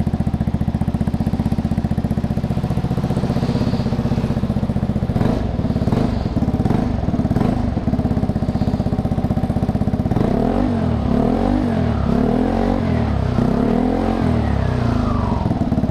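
Vespa scooter's single-cylinder four-stroke engine idling through a Prospeed aftermarket exhaust with its dB-killer baffle fitted, comfortable on the ear. From about ten seconds in the throttle is blipped about four times, the revs rising and falling each time.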